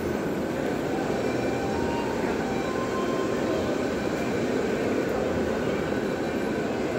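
Steady, even background din of a large indoor hall, with no clear words or distinct events.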